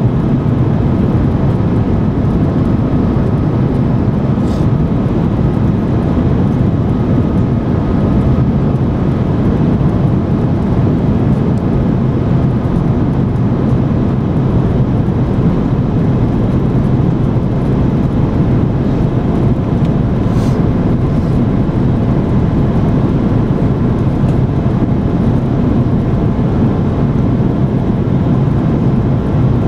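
Cabin noise of an Airbus A330 with Rolls-Royce Trent 700 engines, heard from a window seat over the wing on final approach: a steady low roar of engines and airflow with faint steady hums above it.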